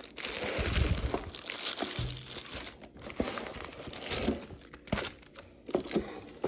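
Packaging being handled and opened: continuous rustling and crinkling, with occasional light knocks.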